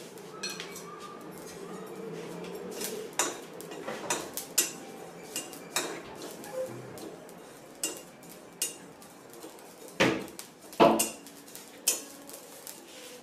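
A spatula stirring and scraping dry shahjeere (black cumin seeds) around a steel kadhai, with irregular clicks and knocks against the metal. The two loudest knocks come about ten and eleven seconds in.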